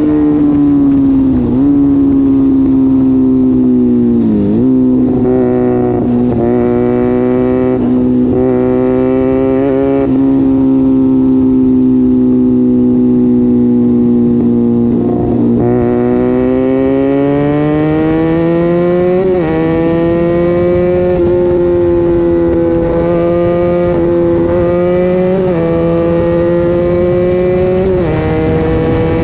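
Sport motorcycle engine running under way through an aftermarket exhaust, its note dipping sharply a few times in the first seconds, holding steady for a long stretch, then climbing slowly in pitch from about halfway with several more short dips.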